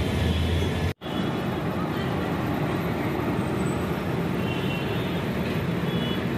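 Indian Railways passenger coaches rolling past close by: steady rumble and clatter of wheels on the rails, with a brief dropout about a second in.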